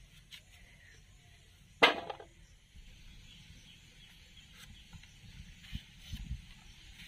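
Pumpkin being cut up on a boti and with a knife: a single sharp knock with a brief ring about two seconds in, and soft low thuds near the end.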